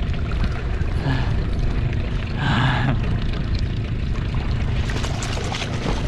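Steady wind noise on the microphone over lapping water. Near the end, a hooked threadfin salmon thrashes at the surface with a burst of splashing.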